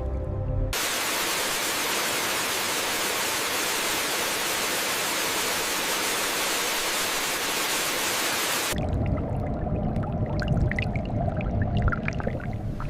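A steady, even hiss of rushing water like a waterfall, which starts and stops abruptly and runs about eight seconds. After it come a low rumble and scattered trickling drips.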